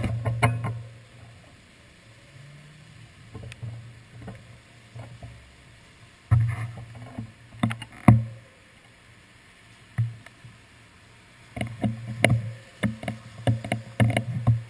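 Raindrops tapping irregularly on a handlebar-mounted action camera, over the low rumble of cars passing on a wet street. The taps come thickest near the end.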